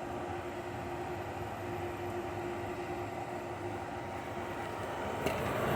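Hisense dehumidifier running on full fan with its compressor on: a steady rush of air from the blower over a steady hum. A click about five seconds in, after which the air noise grows louder.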